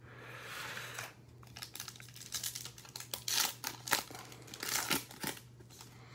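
Foil wrapper of a Topps Chrome baseball card pack being torn open and crinkled, in a run of sharp crackles. It opens with a short rubbing hiss as the pack is slid out of the box.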